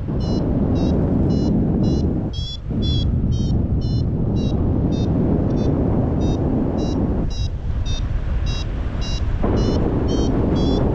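Paragliding variometer beeping, two to three short high beeps a second with the pitch shifting slightly, the tone a vario gives while climbing in rising air. Loud wind rushes on the microphone and eases briefly twice.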